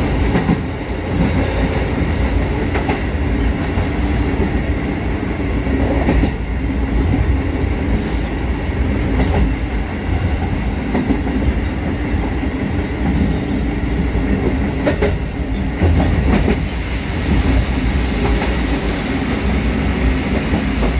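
Kotoden 1200-series electric train running at speed, heard from inside the cab: steady rolling rumble, with a few sharp clacks of the wheels over rail joints at irregular intervals.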